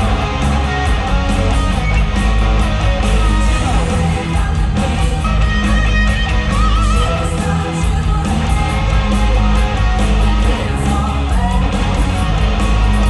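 Loud rock music with heavy bass and electric guitar, with a singing voice in places.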